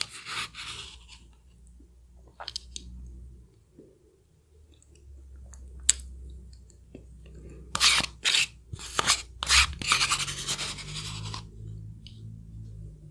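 Close-miked eating sounds: wet chewing and lip smacks on a soft food, with a metal spoon scraping the inside of a small paper cup. The sounds come in short bursts, busiest about two-thirds of the way through.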